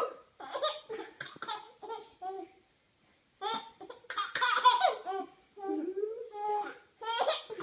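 A baby laughing in short, high-pitched bursts, broken by hiccups. A run of quick laughs, a brief pause, then a longer stretch of laughter.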